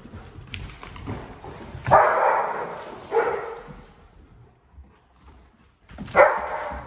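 German Shepherd dogs barking in play: loud barks about two seconds in, again a second later and near the end. Claws scrabble on slick hardwood floor in between.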